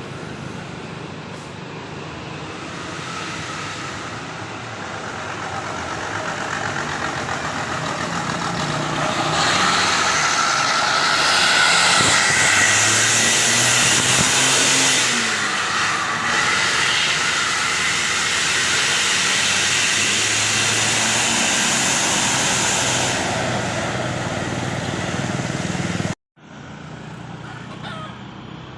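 Road vehicle approaching and passing close by, engine and tyre noise building over about ten seconds and staying loud; the sound cuts off abruptly near the end.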